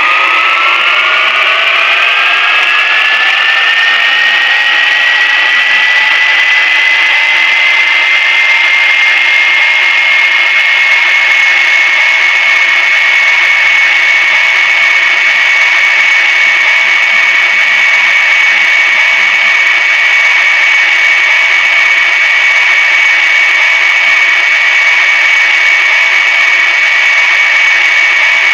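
High-pitched motor whine that climbs in pitch over the first five or six seconds, then holds at a steady high speed with a rushing hiss.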